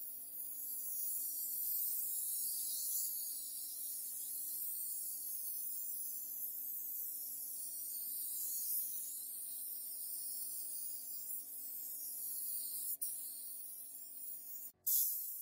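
Compressed-air suction-feed spray gun hissing as it sprays paint, the hiss swelling and easing as the trigger is worked, over a steady low hum. Both cut off abruptly near the end.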